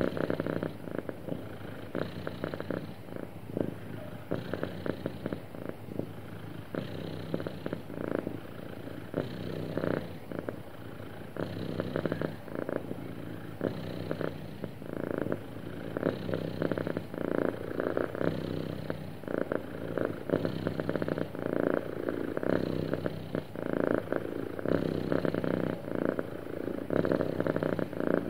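Domestic cat purring steadily, the purr swelling and easing with each breath about every two seconds.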